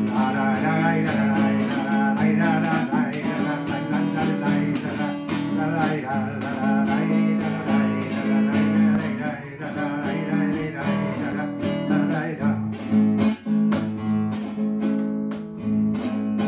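Solo classical guitar playing a song's instrumental introduction, strummed chords mixed with plucked melody notes, with a few sharper strums near the end.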